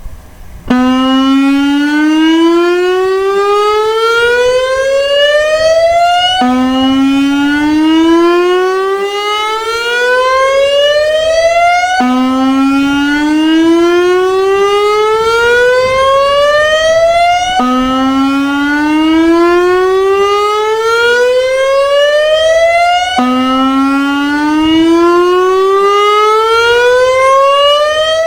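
Severnside warning siren on its routine monthly test, starting about a second in. It sounds a loud repeating wail that climbs steadily in pitch for about five and a half seconds, then drops abruptly and climbs again, five times over.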